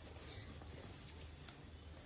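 Faint ticks and light handling noise as carbon arrows are handled, over a low steady hum of room tone.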